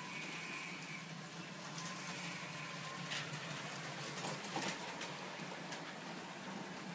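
Faint steady whir of small electric motors from HO-scale model trains and Faller cars running on a layout, with a thin whine and a few light clicks about three to five seconds in.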